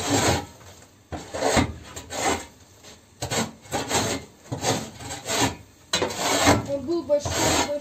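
Flat metal shovel scraping dirt and litter across the floor of a bird pen, in a run of short rasping strokes about one or two a second.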